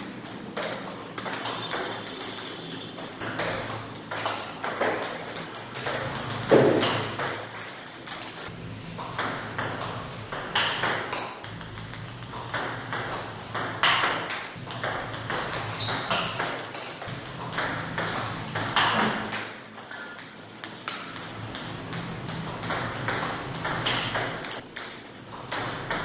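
Table tennis rally: a celluloid-type ping-pong ball clicking off the paddle rubbers and bouncing on the table in a steady back-and-forth run of sharp ticks, as backhand loops are played with the wrist alone.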